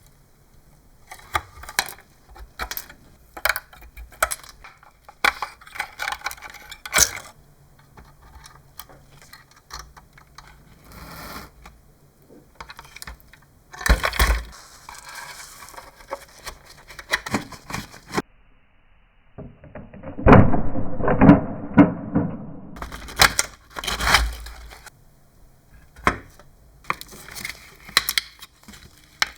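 Irregular clicks, clatter and knocks of metal parts and tools being handled during hands-on repair work. About two-thirds of the way in there is a louder stretch of heavier knocking and rumbling.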